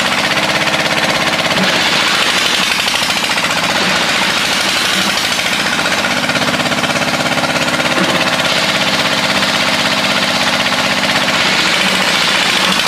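A loud engine running steadily with a rapid, even pulsing beat.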